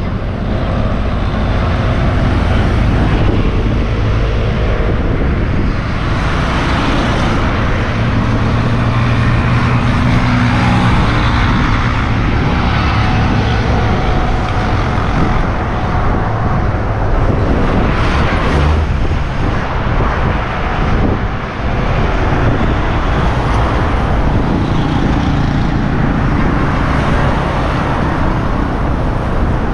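Steady road traffic passing close by on a bridge: engines of cars, three-wheelers and motorcycles swelling and fading over continuous tyre noise.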